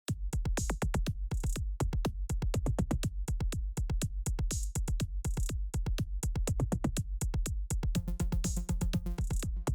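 Electronic background music with a fast, steady drum-machine beat and heavy bass; a sustained synth chord comes in near the end.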